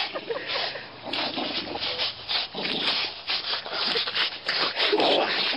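Dog breathing hard in quick rasping pants, about four a second, while tugging and tussling in play, with a few brief whines among them.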